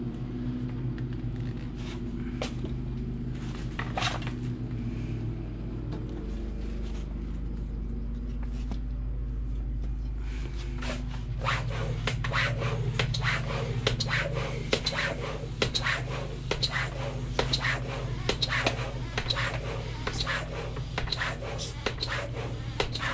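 Small electric air compressor running steadily while it inflates a freshly patched bicycle inner tube. About halfway through, a fast, irregular clicking rattle joins the motor hum.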